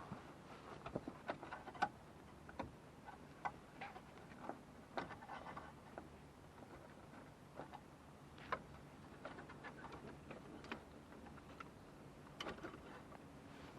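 Irregular small clicks and light taps of hands working small plastic parts of a truck's HVAC controls, fitting a line and its clips.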